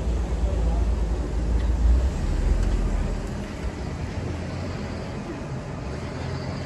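Low, steady rumble of idling vehicles and road traffic, louder for the first three seconds and then easing off.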